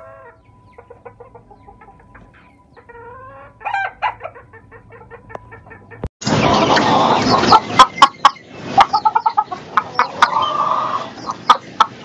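Black crested fancy hen clucking in a run of short calls. About six seconds in the sound jumps to a much louder noisy background with sharp clicks, over which the clucking and a longer drawn-out call go on.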